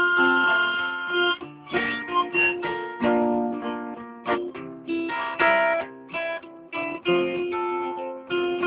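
Acoustic guitar playing an instrumental break in a blues song, picking out a quick run of separate notes with no singing.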